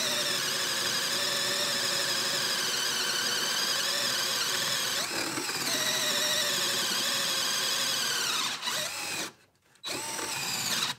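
TackLife 20 V cordless drill in high gear boring a spade bit through pine boards: a steady motor whine that wavers slightly in pitch as the bit bites. It stops about nine seconds in, then runs again briefly twice near the end as the bit finishes the hole.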